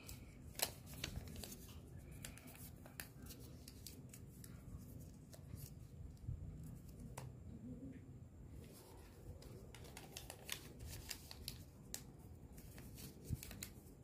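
Paper slips being folded by hand and dropped into a plastic bowl: faint rustling and crinkling with scattered light clicks.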